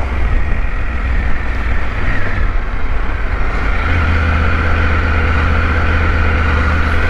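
Motorcycle engine of a KTM 1290 Super Adventure V-twin running steadily under way, a continuous low drone that grows stronger about four seconds in.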